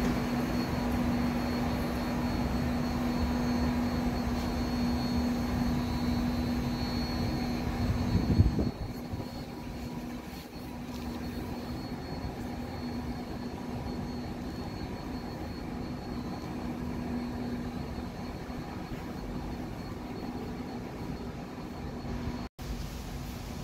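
Steady mechanical hum and low rumble of an underground metro station's ventilation machinery, with a constant droning tone. The rumble is louder at first, swells briefly about eight seconds in, then drops to a softer, steady hum. The sound cuts out for an instant near the end.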